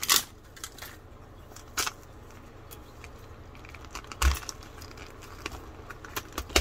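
Foil wrapper crinkling as it is pulled off a plastic toy capsule ball at the start, then scattered small clicks and scratches of fingernails working at the capsule's plastic seam and seal, with a dull bump about four seconds in.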